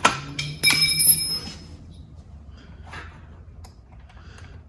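Two sharp metal-on-metal clinks about half a second apart, the second ringing briefly with a bright tone, then faint handling scrapes.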